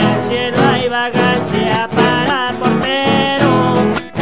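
A Cuyo-style gato, an Argentine folk dance song, played on strummed criolla guitars with singing over them.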